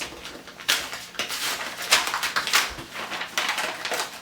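Packaging being handled and opened, rustling and crinkling in irregular bursts.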